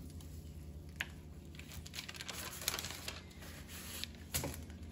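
Wooden rolling pin rolling over dough on parchment paper, the paper crinkling and rustling, with three light knocks spread through. A steady low hum runs underneath.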